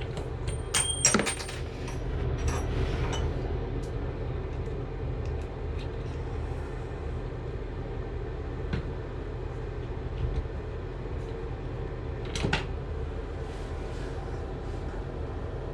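A valve-seat grinding tool being worked against the worn brass seat inside a tub/shower valve body to smooth it, with sharp metal clinks about a second in and again near the end, over a steady low hum.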